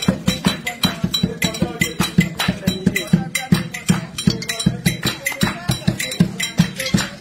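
Percussion music of drums and a bell-like clink on a fast, even beat, about five strokes a second.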